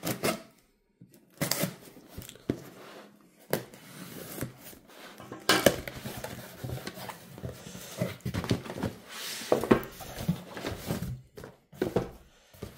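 Folding knife slitting the packing tape on a cardboard shipping box, then the cardboard flaps pulled open and the contents handled, in a run of sharp scrapes, rips and rustles.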